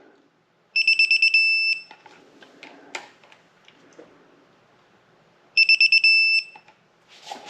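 Digital torque wrench beeping as camshaft cap bolts reach the 18.1 ft-lb target, twice: each time a few quick beeps run into a held beep of about a second. Faint clicks of tools and bolts come in between.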